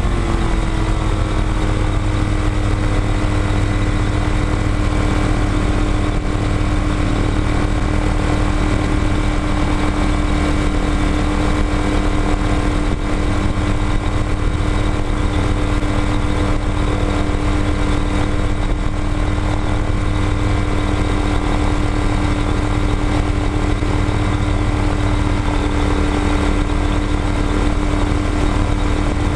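Small ultralight airplane's engine and propeller running at a steady speed while taxiing, with a strong low rumble under a steady engine tone; the pitch rises briefly at the start, then holds even. Heard from a camera on the tail.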